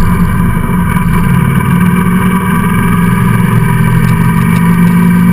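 Motorcycle engine running at a steady cruise, heard from a camera mounted on the bike behind its windshield.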